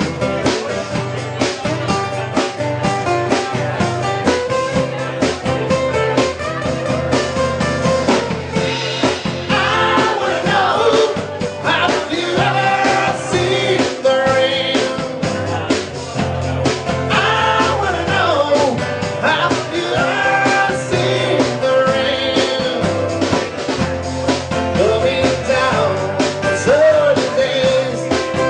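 Live band playing: strummed acoustic guitars over a drum kit. A male lead vocal comes in about nine seconds in and carries on over the band.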